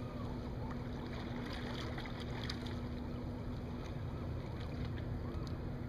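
Wind rumbling on the microphone over water lapping around a sea kayak, with light drips and splashes from paddle strokes. A low steady hum fades out about halfway through.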